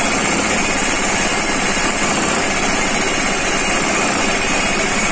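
Tractor-mounted hydraulic post-driving hammer pounding a steel crash-barrier post into the ground, a rapid, continuous hammering over the running tractor engine.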